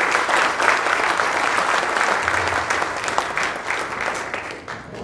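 Audience applauding, a dense clatter of many hands clapping in a large hall, fading away near the end.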